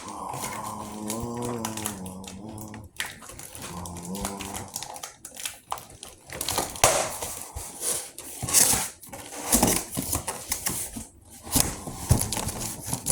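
Plastic and cardboard packaging rustling, crinkling and tearing in irregular bursts as a boxed Bluetooth speaker is opened. For the first few seconds a drawn-out, wavering voice-like call sounds over it, with a shorter one about four seconds in.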